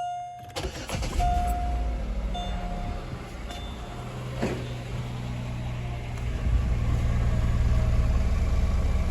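A 2007 Chevy Malibu Maxx's engine starting and settling into a steady idle, with a few short chime tones over the first seconds, then running louder from about six and a half seconds in. This is the first start after an intake valve cleaner was left to soak in the engine for an hour.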